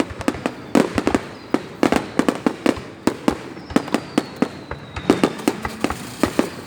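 Fireworks going off: rapid, irregular volleys of sharp bangs and pops, with a faint falling whistle about halfway through.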